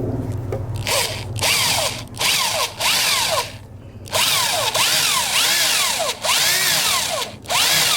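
Power drill boring through the sheet metal of a pickup's roof at the drip rail, opening a hole out toward 3/8 inch. It runs in stop-start bursts with a wavering squeal from the bit cutting metal.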